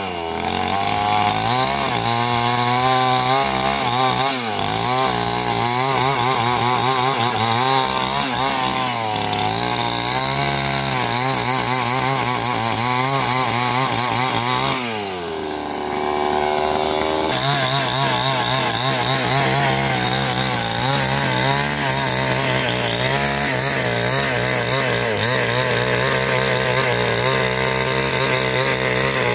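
Two-stroke chainsaw running at high revs while ripping a log lengthwise into planks, its pitch wavering as the chain bites into the wood. About halfway through it drops to a lower pitch for a couple of seconds, then revs back up and carries on cutting.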